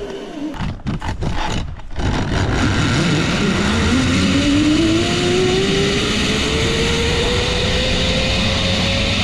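Zipline trolley pulleys running along the steel cable with a whine that rises steadily in pitch as the rider picks up speed and then holds, over rushing wind noise.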